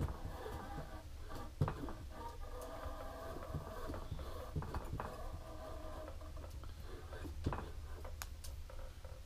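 Rod-wrapping machine laying thread onto a fishing rod blank for a decorative wrap, with the thread carriage sliding along its metal rail: a steady low hum and a wavering whir, broken by a few sharp clicks, the loudest about a second and a half in.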